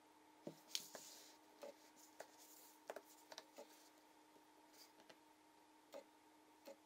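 Near silence: a faint steady hum, broken by a string of faint clicks and taps as small objects, among them a snap-on lens cap, are handled and set down on a tabletop.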